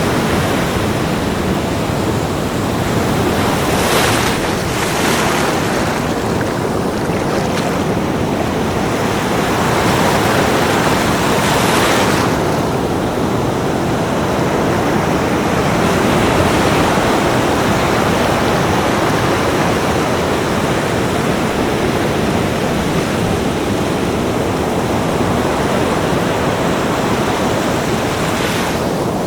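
Ocean surf breaking on a beach: a continuous wash of waves, with brief brighter hissing surges as waves break and rush in, about four seconds in, around twelve seconds and near the end.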